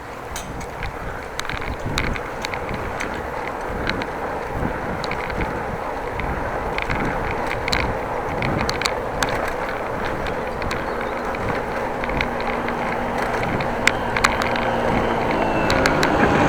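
Bicycle riding: a steady rumble of tyres on the road and wind on the microphone, with scattered small clicks, growing gradually louder toward the end.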